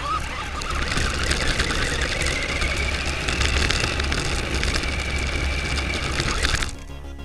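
Onboard sound of an electric RC car (New Bright Corvette): the electric motor and gears whine, rising in pitch as the car speeds up and then holding steady, over the crunch and rattle of its tyres on gravel. It cuts off suddenly near the end.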